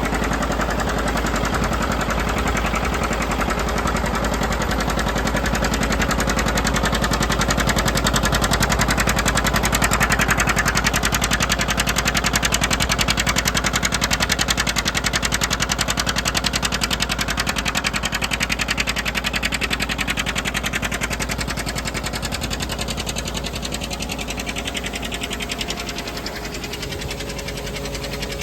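John Deere 720's two-cylinder diesel engine running steadily under load while driving a Gehl feed grinder, engine beat and grinding machinery together. It swells a little about ten seconds in and eases off toward the end.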